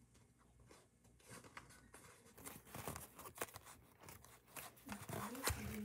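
Double-sided tape being pulled off its roll and torn, with paper rustling and small ticks as it is handled. It starts faintly about a second in and gets louder.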